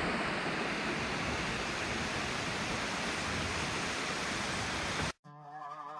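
A steady, even rushing hiss that cuts off abruptly about five seconds in. Faint music with a wavering tone follows near the end.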